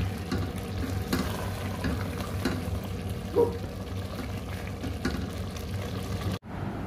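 Food sizzling in a pan while a utensil stirs it, with scattered light clicks and scrapes of the spoon against the pan and a brief squeak about midway. The sound breaks off abruptly near the end.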